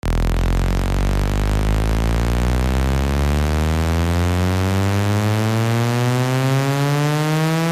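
A loud, buzzy tone rich in overtones starts suddenly and glides steadily upward in pitch from a deep hum: a rising pitch sweep of the kind used to test speakers.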